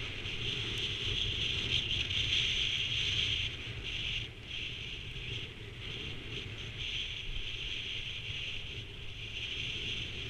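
Skis hissing and scraping over packed snow on a downhill run, the hiss dipping briefly a few times, over a low rumble of wind on the microphone.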